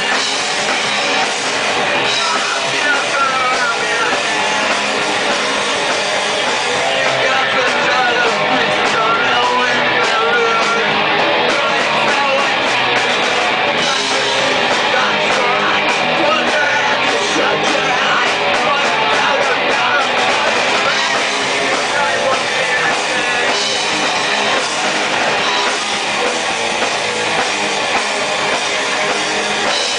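A rock band playing live and loud, with electric guitar and a drum kit.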